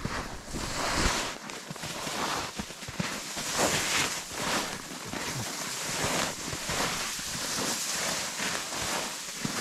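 Footsteps crunching and shuffling through snow, with rustling of brush and clothing close to the microphone, in an uneven run of scrapes.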